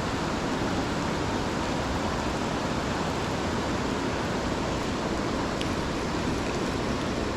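Creek water rushing steadily over rocks: an even, unbroken wash of sound.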